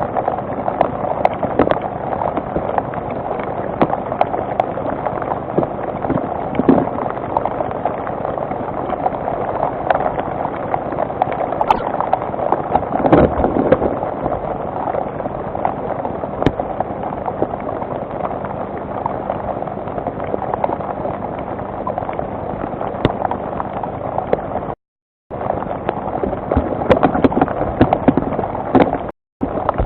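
Steady rain heard through a webcam microphone: an even hiss with many small ticks of drops. The sound cuts out briefly twice near the end.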